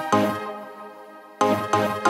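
Background music: notes struck in a quick, even pulse that fade out for about a second and start again about one and a half seconds in.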